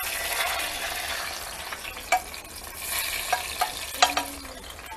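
Hot oil sizzling steadily as fried garlic and chiles de árbol are tipped from an enamel pan into a bowl, with a few sharp clicks and scrapes of a metal utensil against the pan in the second half.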